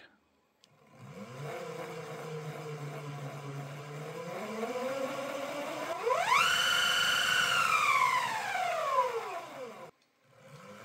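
Brushless outrunner mid-drive motor on a Xiaomi M365 scooter spinning the unloaded rear wheel through a toothed belt. It starts with a low steady whine and rises a little around four seconds in. At about six seconds it jumps to a high-pitched whine, holds, then winds down in a falling whine and stops just before the end.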